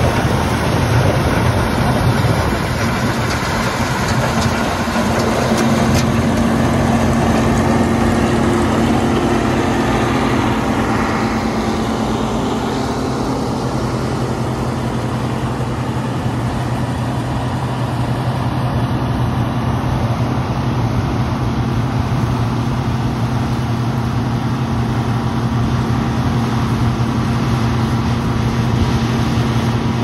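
An old self-propelled combine harvester, over 50 years old, running steadily while it cuts and threshes wheat: a constant engine hum over the broad noise of the working machinery.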